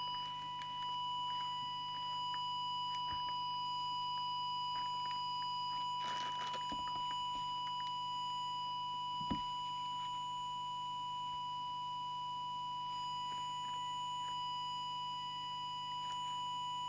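Audio oscillator's steady test tone, one unbroken pure note, sounding into the CB radio's plastic-covered microphone while the transmitter's FM deviation is set. A small knock comes about nine seconds in.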